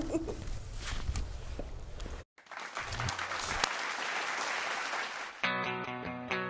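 Applause and clapping hands, broken by a brief silence about two seconds in. About five seconds in, an electric guitar starts playing.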